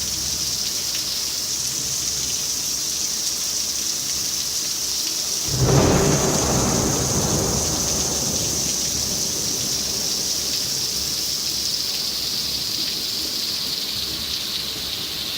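Tropical rain falling steadily, with a clap of thunder about five and a half seconds in that rumbles and fades away over the next few seconds.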